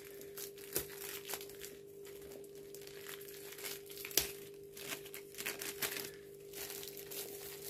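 Clear plastic wrapping around a rolled diamond-painting canvas kit crinkling softly and irregularly as it is handled and pulled open, with one sharp tick about four seconds in.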